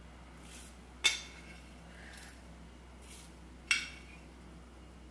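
A wooden spoon scooping dry rolled oats out of a glass jar: a soft rustle of oats, then a sharp clink with a short ringing, twice, about a second in and again later.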